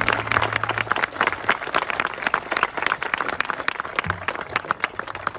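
Crowd applauding with dense, irregular hand claps as the last strummed acoustic guitar chord rings out and fades about a second in. A brief low hum sounds about four seconds in.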